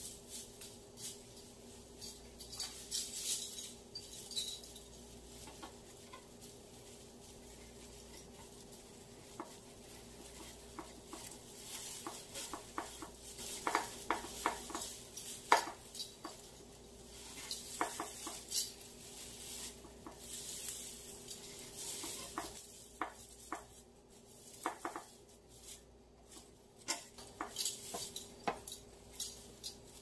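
Dry raffia strands and sneezeweed stems rustling and crackling as they are handled and tucked into the arrangement, with scattered light clicks, the sharpest about halfway through. A faint steady hum runs underneath.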